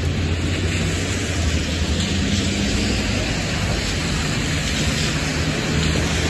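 Traffic on a rain-soaked road: a steady hiss of tyres on wet pavement over a low engine hum.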